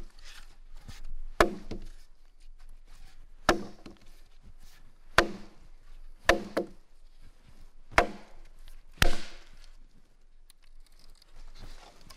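A piece of green wood, sawn halfway through in the middle, being struck end-on against a log to split it along the saw cut: about eight sharp woody knocks at uneven intervals, two of them in quick succession.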